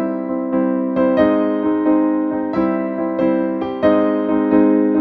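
Outro music: a gentle electric piano melody, notes struck about every half second.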